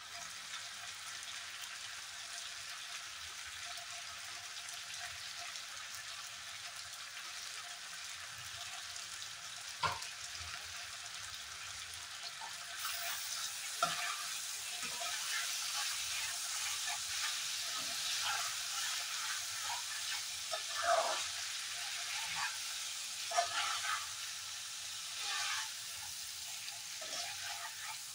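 Cauliflower curry sizzling as it fries in a pan, stirred with a spatula that scrapes and clinks against the pan now and then. The sizzle grows louder about halfway through.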